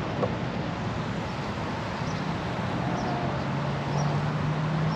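Open-air background on a golf course: a steady hiss of noise, a few faint bird chirps, and a low motor hum that comes in about two seconds in and grows slightly stronger.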